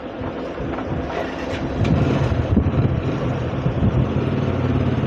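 An engine idling steadily, a low even rumble that grows louder about two seconds in.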